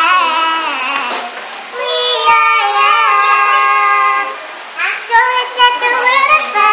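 Two young people singing together in drawn-out, held notes that slide up and down, with a short break about four and a half seconds in before the singing picks up again.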